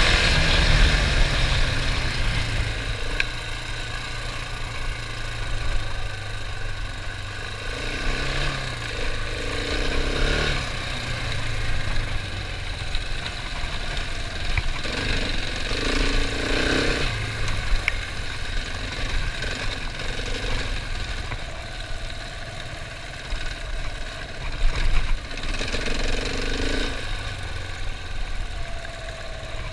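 Husqvarna 701 Enduro's single-cylinder four-stroke engine running at low revs while riding a dirt track. The revs drop over the first couple of seconds, then there are short bursts of throttle a few times.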